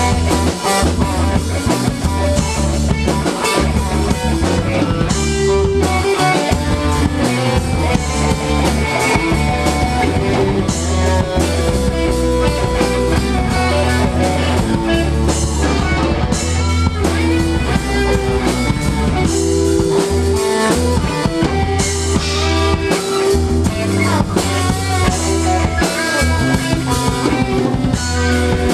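A live rock band playing: electric guitar over a drum kit, with a heavy low bass line.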